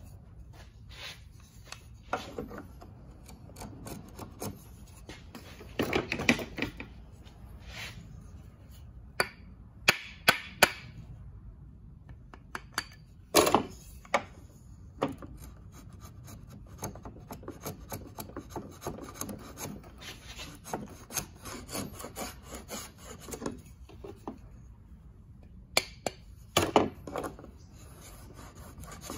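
A 1700s wooden molding plane being pushed along the edge of a board in repeated rasping strokes as the blade shaves wood, with a few sharp knocks and clicks between strokes, clustered near the end.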